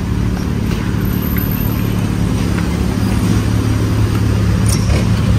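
Steady low mechanical hum that grows slightly louder toward the end, with a brief high squeak near the end.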